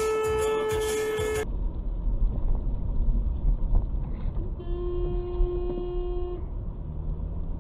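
A car horn held steadily for about a second and a half, then low engine and road rumble from inside a car. About three seconds after that a second horn, lower in pitch, is blown for nearly two seconds as another car crosses in front.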